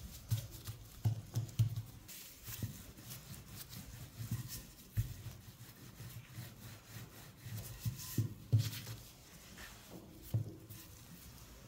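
Hands pressing and patting soft dough on a silicone baking mat, then a wooden rolling pin rolling it out: irregular soft thumps and rubbing.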